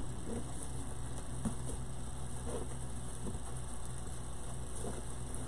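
Faint handling sounds of ribbon being tied onto a wire wreath frame, a few soft scattered clicks and rustles over a steady low hum.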